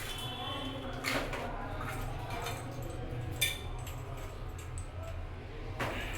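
A steady low hum with three short clinks or knocks, about a second in, in the middle and near the end.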